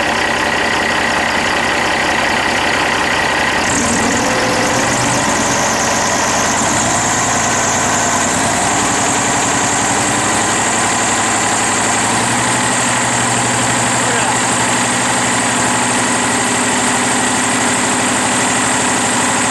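Cummins ISX diesel truck engine idling. About four seconds in it is brought up to a higher steady speed, about 1500 RPM as the blow-by test calls for, and held there, with a high hiss coming in.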